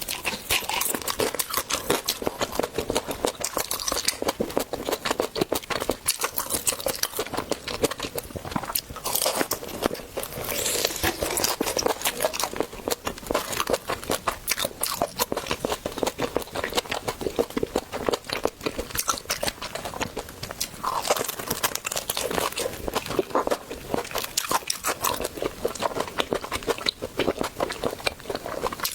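A person biting and chewing spicy sausage, with a dense run of rapid mouth clicks and crunches.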